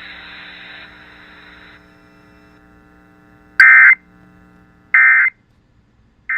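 Radio static hiss that drops away about two seconds in, then three short bursts of Emergency Alert System SAME digital data tones, spaced about a second and a half apart, each quieter than the one before. Their shortness fits the end-of-message code that closes an alert.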